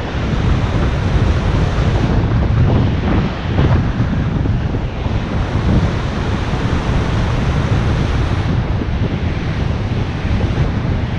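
Wind buffeting an action camera's microphone as a bicycle rides along the beach, over the rush of surf breaking alongside. The noise is loud and steady, heaviest in the low end, with irregular gusts.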